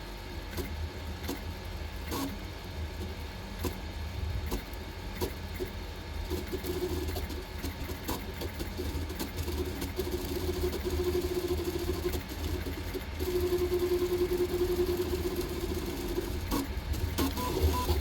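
CoreXZ 3D printer built on an Ender 3 frame printing fast at about 20,000 mm/s² acceleration: the stepper motors give mid-pitched whines that come and go as the moves change, over a steady low hum and quick ticking and rattling of the moving bed and gantry.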